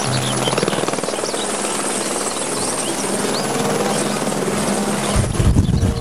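Light helicopter flying low, its main rotor blades making a rapid, steady chop over the turbine, with a deeper low rumble swelling near the end.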